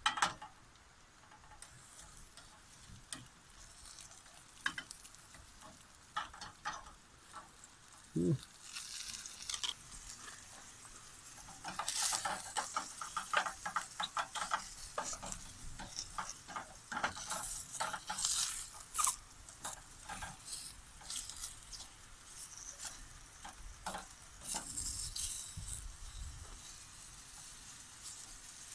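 Whole mushrooms sizzling as they fry in olive oil in a small pan, with irregular scraping and clattering as they are stirred.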